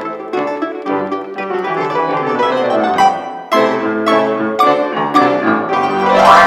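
Solo acoustic piano playing a run of accented, repeated chords, with a fast upward glissando sweeping across the keys near the end into loud closing chords.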